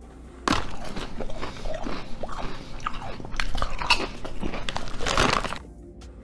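Loud crunching and chewing of crunchy snack chips from a foil bag, close to the microphone. It comes as an irregular run of crisp bites that starts suddenly about half a second in and stops shortly before the end.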